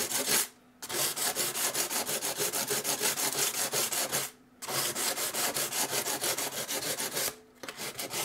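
120-grit sandpaper rubbed by hand back and forth over the rusty sheet-steel diskette drive cage, in fast scratchy strokes about seven a second. It stops briefly three times.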